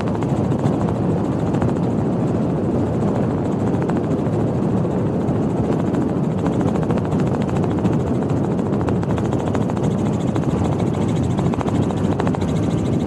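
Steady, dense vehicle roar that neither rises nor falls in pitch.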